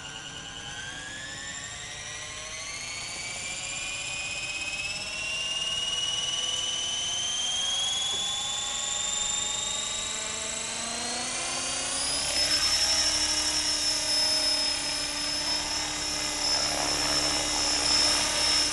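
Align T-REX 450SE electric RC helicopter's brushless motor and gear train whining as the rotor spools up, the pitch rising steadily for about twelve seconds. The whine then levels off at a steady high pitch and the sound grows louder as the rotor reaches flying speed.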